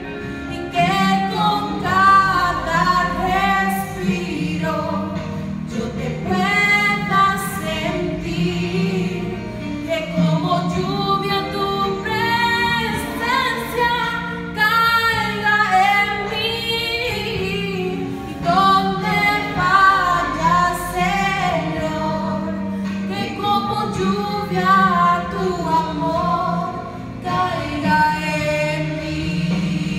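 A woman singing solo, with a steady instrumental accompaniment underneath.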